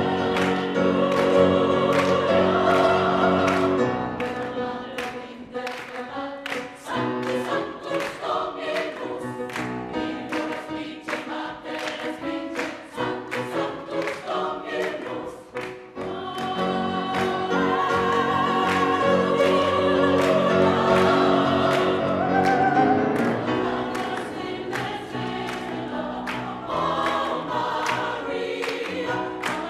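Mixed choir singing a gospel arrangement in harmony, with a female lead singer on a microphone, over a steady beat of handclaps. The full choir drops back about four seconds in and swells again about halfway through.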